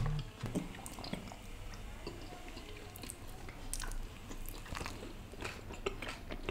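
Close-miked chewing and biting of a piece of butter tandoori roti, a scatter of soft mouth clicks and smacks.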